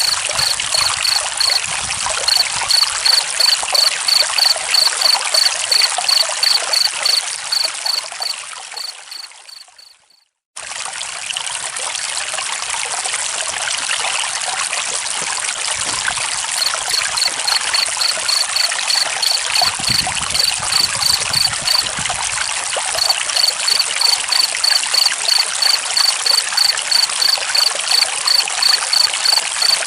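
Flowing stream water with crickets chirping in a steady, regular pulse. The sound fades out about ten seconds in, drops to a moment of silence, and then starts again.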